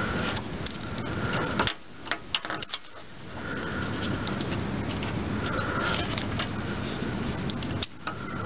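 Light clicks and taps of a screwdriver working loose a lawn tractor's pedal safety switch, over a steady rushing background noise. The rushing drops away for about a second and a half, about two seconds in.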